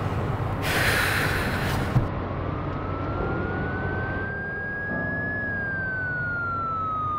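Police siren wailing: one slow tone that rises for about three seconds, then falls away slowly, over a steady low rumble. Before it starts, a short burst of noise and a sharp knock about two seconds in.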